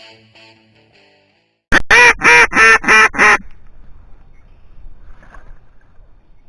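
A loud run of about five quacks in quick succession, each call pitched with a clear ring above it, the duck sound used in waterfowl hunting. The tail end of guitar music fades out just before it.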